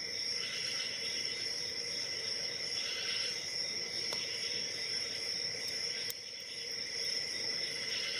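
Faint scraping and a few light clicks of a shallow hook pick working the pins of a Brinks laminated brass-cylinder padlock under tension, trying to force a false set. A steady high-pitched tone sounds throughout.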